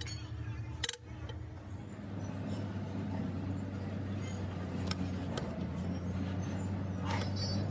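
An engine or motor running steadily with a low, even hum, and a few sharp metallic clicks.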